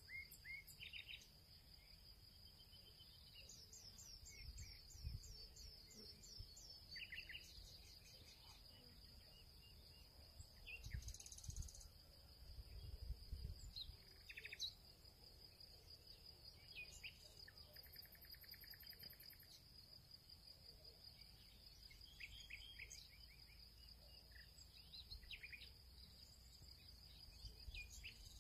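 Faint outdoor ambience: a steady high-pitched insect trill, with birds chirping in quick series now and then. A few soft low thumps.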